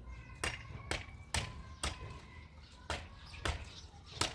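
A series of sharp knocks, about two a second but unevenly spaced, with a faint ringing tone behind them.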